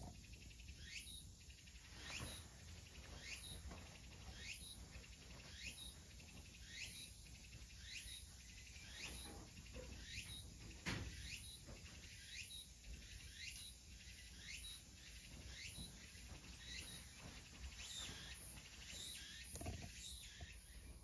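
Faint chirping: a short rising chirp repeated evenly, about once or twice a second, with a soft thud or two, the clearest about eleven seconds in.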